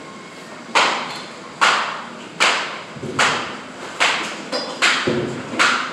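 Track workers' hammer blows on metal track material, struck in a steady rhythm of about one sharp, ringing strike every 0.8 seconds, seven or so in all, starting just under a second in.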